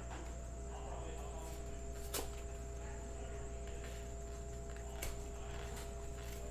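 Cardboard trading-card hanger box being handled and opened, with two sharp clicks, one about two seconds in and one about five seconds in, over a steady low hum and faint steady tones.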